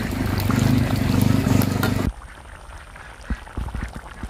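Fish curry bubbling hard in a clay pot, with curry poured back from a ladle into the pot. About two seconds in the sound cuts off suddenly, leaving a much quieter background with a few light knocks.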